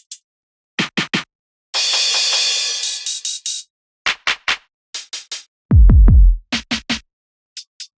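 Electronic dance drum samples from EZdrummer 3's Dance EZX library played one at a time: short snappy hits in groups of two or three, a long crash-like hiss about two seconds in, and a deep, loud bass boom that drops in pitch about six seconds in.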